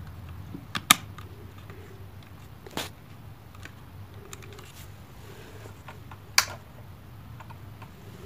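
Sharp clicks from a Canon EOS M100 camera body being handled while its pop-up flash is pushed down: three clicks, about a second, three seconds and six seconds in, with faint handling rustle between them.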